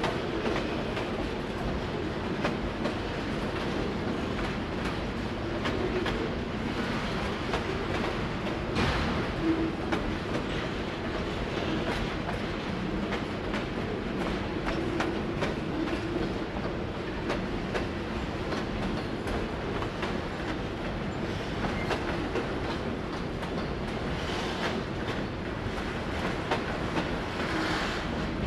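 Autorack freight cars of a long train rolling slowly past over a road crossing, their wheels clacking steadily over the rail joints.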